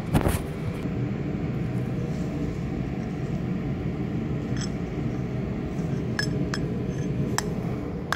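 A steady low room rumble with phone handling noise, a knock just after the start, then a few light clinks of a small lidded specimen jar being handled in a gloved hand, about four to seven seconds in.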